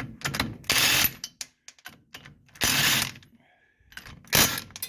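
Ratchet wrench clicking in three short spells, with small metal clicks between, as a lug nut is run along a cut-down wheel stud to chase threads that grinding may have damaged.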